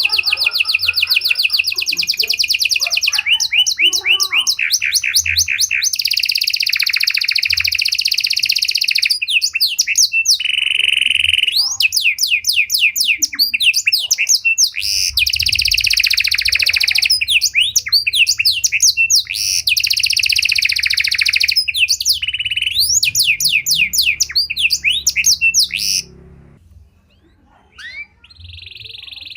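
A panda (pied) domestic canary singing a long, loud song of fast rolling trills, each phrase a rapid run of repeated notes that switches to a new pattern every second or two. The song breaks off about 26 seconds in, and a new trill starts near the end.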